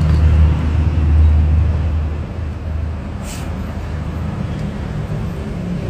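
Low, steady rumble of an engine idling close by, easing off a little about two seconds in, with a short hiss about three seconds in.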